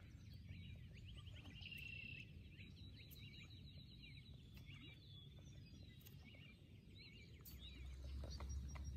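Faint songbirds chirping and trilling, with many short calls and rapid trills. A low rumble comes up near the end.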